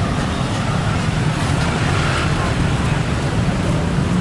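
Steady road traffic noise on a busy city street, a constant low rumble of passing vehicles.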